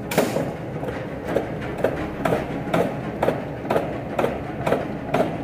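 A flywheel-driven mechanical press cycling, each stroke a sharp clank, evenly about twice a second, over the steady rush of a gas forge burner.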